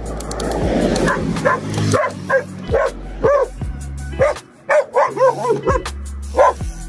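Dog barking and yipping in a rapid run of short barks, up to about three a second, with a rush of wind on the microphone during the first two seconds.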